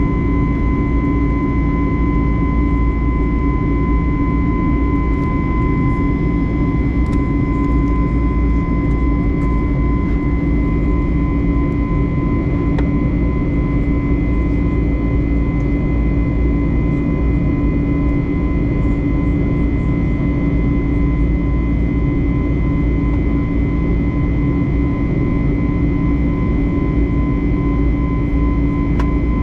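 Airbus A321neo jet engines and airflow heard inside the passenger cabin: a loud, steady drone with a constant whine, holding even throughout.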